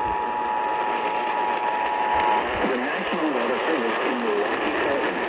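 Emergency Alert System attention signal, the steady two-tone 853 and 960 Hz alert tone, heard over AM radio with a constant static hiss. It cuts off abruptly about two and a half seconds in, and a voice starts speaking through the static.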